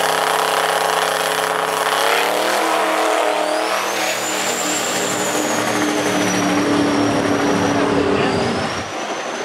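Diesel drag-racing pickup's engine held at high revs on the starting line, then launching about two seconds in and pulling hard away down the track. A high whistle rises soon after the launch and holds, and the sound drops off near the end.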